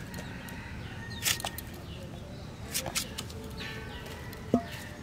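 Pumpkin being sliced on a bonti blade, heard as a few short, crisp cutting strokes. Near the end comes a single knock with a brief metallic ring, as cut pieces drop into a steel bowl.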